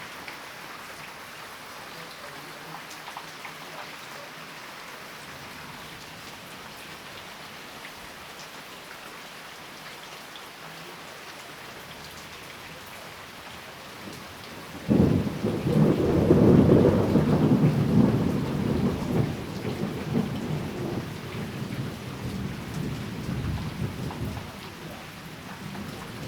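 Steady rain falling, with a loud thunderclap about halfway through that starts suddenly and rolls on as a low rumble, fading out over about ten seconds.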